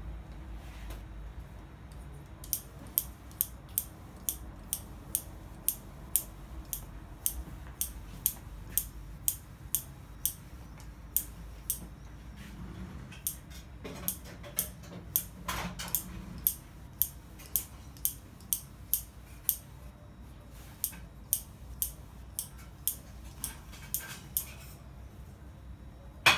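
A regular run of short, sharp clicks from a kitchen utensil, about two a second, with a brief rustle and scrape about halfway through.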